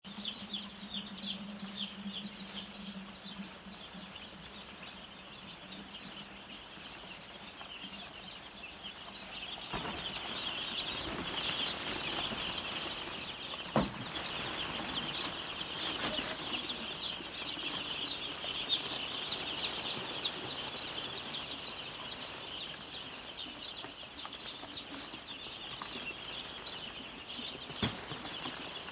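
A flock of young brooding chicks peeping continuously, many high chirps overlapping. A low steady hum underneath stops about ten seconds in, and a sharp knock comes near the middle.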